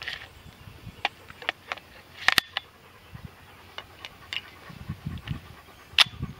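KWA KMP9 gas blowback airsoft SMG firing semi-auto shots, each a sharp crack as the slide cycles: a quick pair about two seconds in and a single loud shot near the end, with softer clicks in between.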